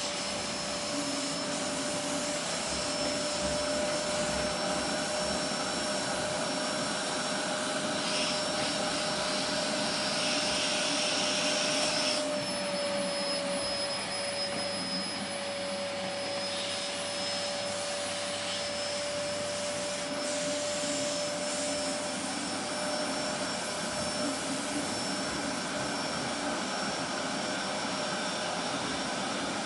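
Vacuum cleaner running steadily: a continuous rushing noise with a steady whine through it. The sound shifts slightly about twelve seconds in.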